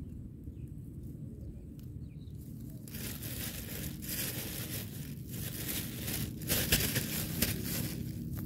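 Rustling, crinkling handling noise of something being worked by hand, starting about three seconds in and going on in small crackles, over a low steady rumble.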